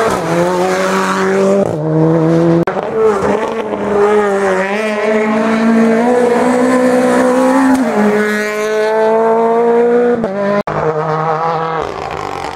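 Rally car engines at hard throttle on a tarmac stage. The engine note holds for a second or two at a time, then jumps in pitch at each gear change, several times over.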